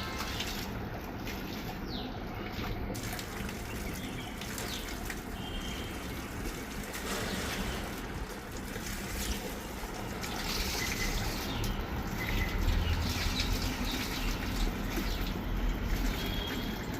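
Shower water running and splashing over a dog being bathed, a little louder from about ten seconds in.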